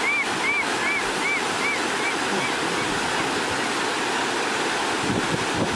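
Steady rushing of running water. Over it, a series of short repeated chirps, about two and a half a second, fades away in the first two seconds.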